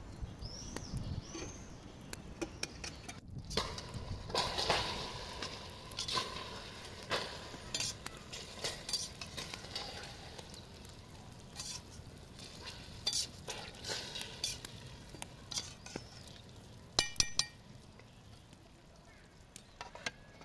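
Metal spoon stirring a thick stew in an aluminium pressure cooker, scraping and clinking against the pot's sides, with a cluster of sharp clinks about three-quarters of the way through.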